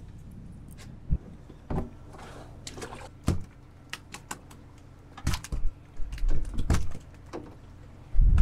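Irregular knocks, clicks and rubbing from hands handling fish, a cooler and fishing gear on a boat deck, with low rumbly bursts about six seconds in.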